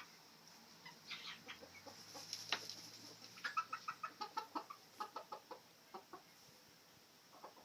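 Silkie chickens clucking: short clucks scattered at first, then a quick run of several a second in the middle, tailing off to a few near the end.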